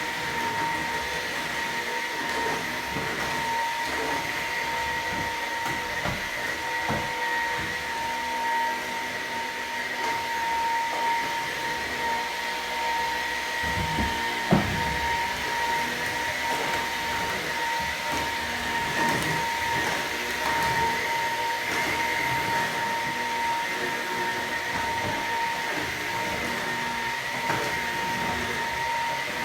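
Vacuum cleaner running steadily with a constant high whine while the floor is cleaned, with scattered knocks of the nozzle on the floor and a sharper knock about halfway through.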